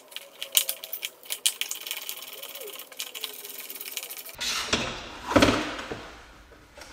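Rapid clicking and rattling as a car's plastic lower engine cover is worked loose from the underbody. About four seconds in, a louder scraping rustle with a thud as the panel is pulled down.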